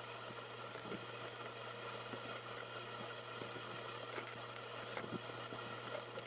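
Faint scratching and light taps of printed paper being scored and handled, irregular and soft, over a steady low hum and hiss.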